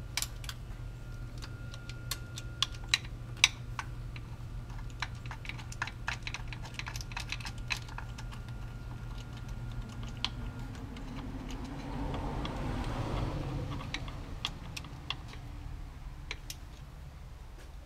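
Irregular light metallic clicks and taps of hand tools and bolts as the starter motor's mounting bolts are fitted. A rushing noise swells and fades about twelve seconds in.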